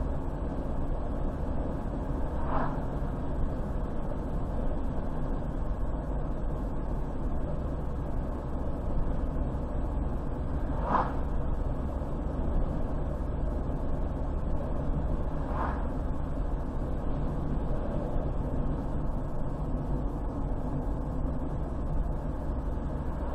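A car driving along a highway: steady low engine and road rumble, with a few brief knocks scattered through it.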